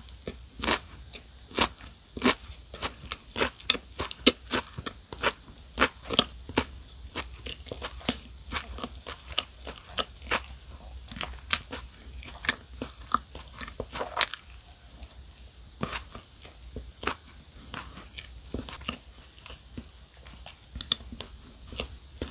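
Eating a lettuce-filled club sandwich of soft bread and crisp lettuce: steady chewing with wet crunches and mouth clicks, two to three a second, and a fresh bite of bread and lettuce partway through.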